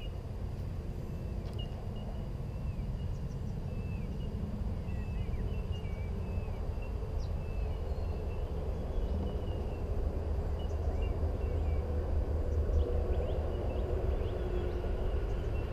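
Creekside ambience: small birds chirping in short repeated calls, over a steady low rumble, with a rougher hiss growing louder in the last few seconds.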